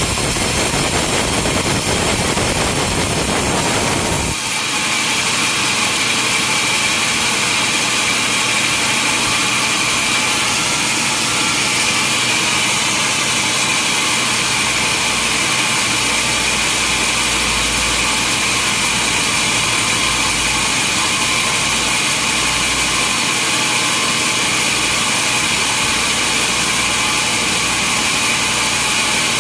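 Sawmill machinery running loudly and steadily. The sound changes abruptly about four seconds in, and a steady high whine runs on after that.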